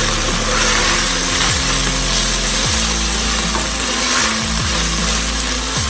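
Vegetables and sauce sizzling as they stir-fry in a pan, stirred and scraped against the pan, with background music underneath.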